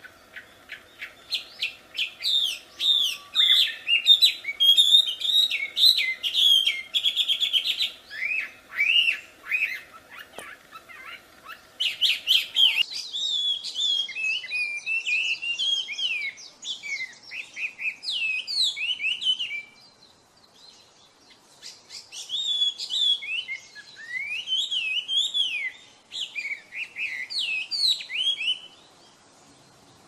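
Chinese hwamei singing: a long, varied song of quick whistled notes that rise and fall, with brief pauses twice and a stop just before the end.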